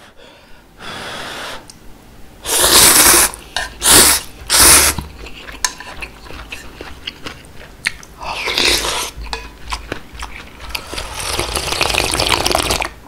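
Close-miked slurping of ramen noodles in beef seaweed soup, in several loud, sharp slurps with soft chewing clicks between them. Near the end comes a long slurp of broth sipped straight from the bowl's rim.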